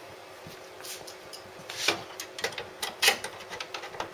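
A hand screwdriver drives screws back into a Xerox 700 copier's transfer unit. It is quiet at first, then from about halfway comes a run of sharp metal clicks and scraping.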